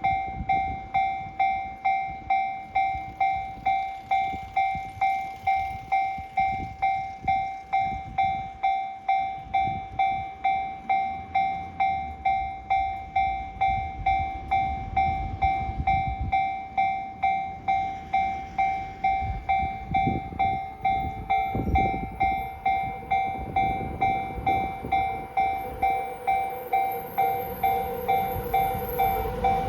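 Japanese railway level-crossing warning bell ringing steadily, about two dings a second. Near the end a train's rumble and running tone build as it approaches the crossing.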